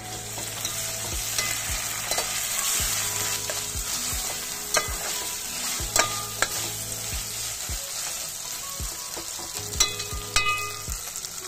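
Ginger-garlic paste sizzling in hot oil with fried onions in a metal pot, stirred with a slotted metal spatula that scrapes and clicks against the pot, with a few sharper knocks about ten seconds in.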